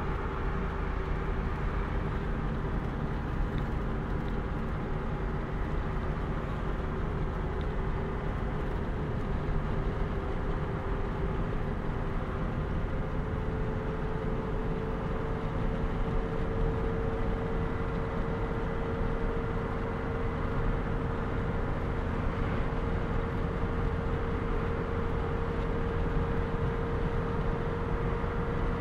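Road noise inside a car cruising on a motorway: steady tyre rumble and engine drone heard through the cabin, with a faint hum that rises slightly in pitch about halfway through.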